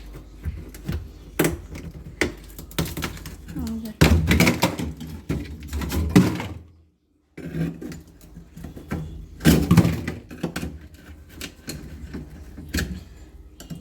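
Irregular knocks, thunks and scraping in a chest deep freezer as thick built-up ice is broken loose and cleared, with the loudest clatter about four seconds in and again near ten seconds. The sound cuts out completely for a moment near seven seconds.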